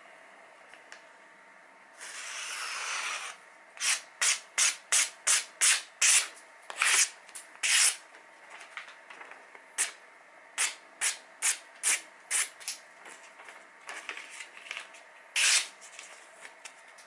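Santoku-style kitchen knife slicing a glossy catalogue page in a run of short, quick cuts, about two a second at first and then more spaced out, the sound of a sharp edge passing cleanly through paper. A longer rustle of the page being handled comes about two seconds in.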